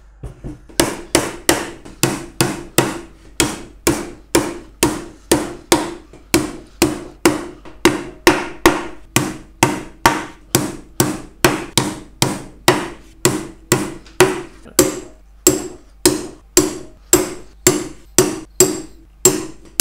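Steel hammer driving lost-head wire nails into the wooden corner joints of a beehive brood body: a steady run of sharp blows, about two a second.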